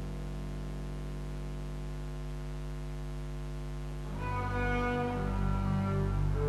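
A steady held pipe-organ tone sounds alone, and about four seconds in a double bass enters with a long bowed note over it.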